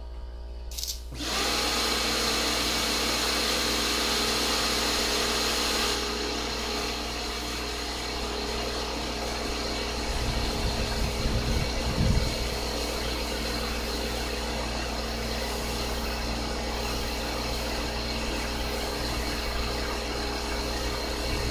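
Pressure washer starting about a second in and running steadily: a constant motor hum under the hiss of the water jet spraying onto the car. The hiss eases a little about six seconds in.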